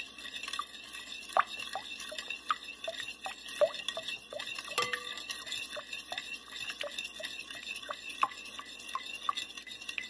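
Metal spoon stirring beaten eggs and oil in a glass bowl, clinking lightly against the glass about two or three times a second.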